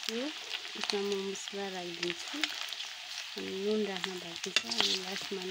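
Chunks of buffalo meat with tomato frying in a metal wok and stirred with a metal spatula: steady sizzling with scrapes and clicks of the spatula against the pan. A low wavering tone comes and goes underneath.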